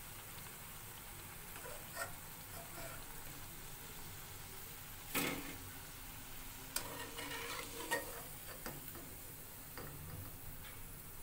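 Taro pieces frying in hot oil in a steel kadai with a faint steady sizzle. A slotted steel spoon scrapes and clinks against the pan a few times, loudest about five seconds in.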